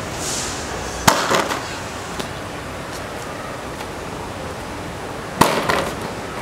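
Two-wheel self-balancing scooter dropped flat onto concrete twice, about four seconds apart. Each drop is a sharp crack with a brief clatter after it as the board settles.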